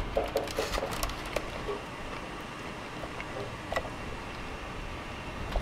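Light clicks and rustles of food and paper wrappers being handled while eating at a table, over a low steady background, with a few faint voices in the first second.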